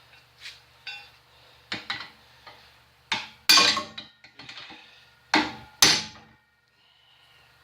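Metal tools knocking and clanking on metal parts of a molder-planer: about eight sharp strikes in uneven pairs with a brief ring, the loudest about halfway through, typical of tapping a stuck lock collar loose.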